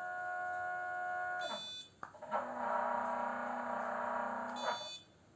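Motor drive of an iOptron CEM60 equatorial mount slewing its declination axis at 128x, as a steady pitched whine. The whine runs for under two seconds, stops briefly with a short high-pitched squeal, then starts again as a harsher buzzing whine for about two and a half seconds and ends with a similar squeal. These are the strange running noises that led to the mount being sent back for adjustment.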